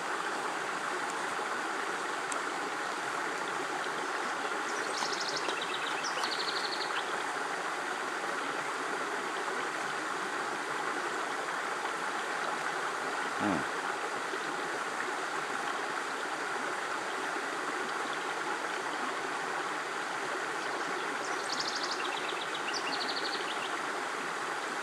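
Steady rush of flowing water. A bird sings a short phrase of rapid high notes twice, about five seconds in and again near the end.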